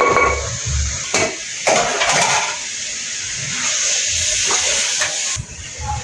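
Food sizzling in hot oil in a cooking pan: a loud, steady frying hiss that cuts off about five seconds in, with a few knocks of a utensil against the pan near the start.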